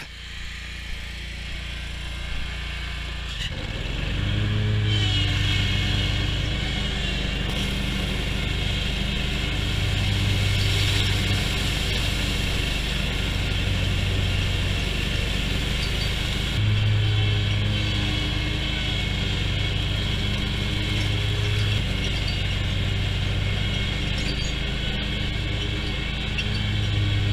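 Hustler X-ONE zero-turn mower's Kawasaki engine running steadily, getting louder about four seconds in as the mower works.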